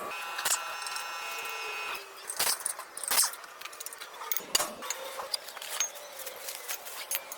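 Metal tools and brake parts clinking and rattling as they are handled, a string of light sharp clicks at irregular intervals. A steady high tone sounds through the first two seconds and then stops.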